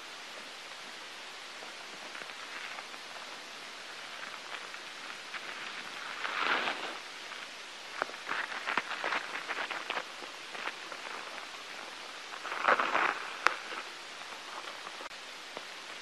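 Steady hiss with a few short bursts of crackling rustle and a run of small, irregular clicks in between.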